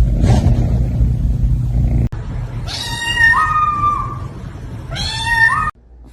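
A loud, low rumble, then a domestic cat meowing twice: two drawn-out calls, each stepping up in pitch at the end.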